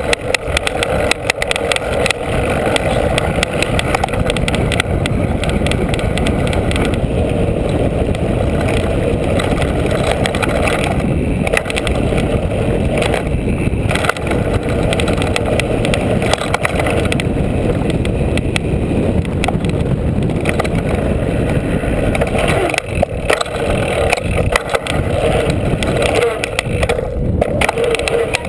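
A mountain bike running fast down a dirt downhill trail, heard from the GoPro mounted on it: a steady rush of wind on the camera's microphone and knobby tyre rumble, with constant sharp rattles and knocks as the bike hits bumps. Near the end the tyres roll onto a wooden ramp.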